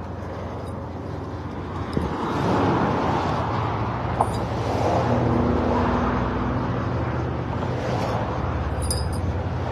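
A car driving, with a steady engine hum and road noise.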